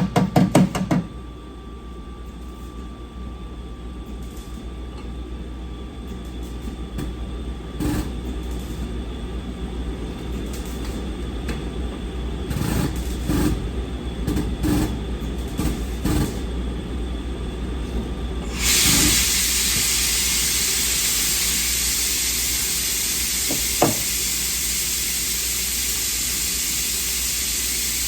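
Rear-end repair work on a car: a short rapid rattling burst at the start, then scattered knocks and clanks. About two-thirds of the way in, a loud steady hiss sets in and runs on.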